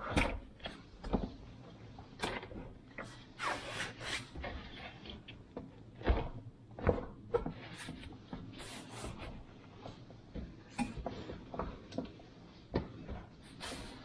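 Hands handling the white plastic base and hoses of a Bosch dishwasher: irregular knocks, clicks and rubbing, with the loudest knocks about six and seven seconds in.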